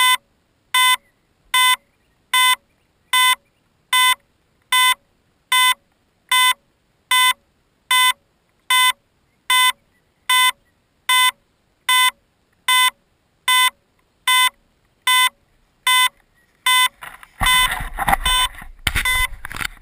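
Electronic beeper sounding short, identical high beeps about every 0.8 seconds. About 17 seconds in, loud rumbling handling noise comes in as the camera is picked up, with the beeps going on underneath.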